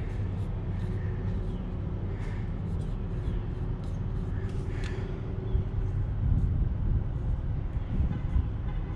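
A skid steer's diesel engine idling steadily. Faint scratching of a marker writing on a filter canister runs over it in the first half.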